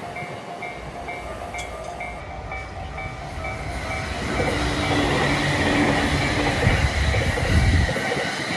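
Japanese level-crossing warning bell dinging rhythmically at a steady pace. A train's rumble and wheel clatter build up from about halfway through and are loudest near the end.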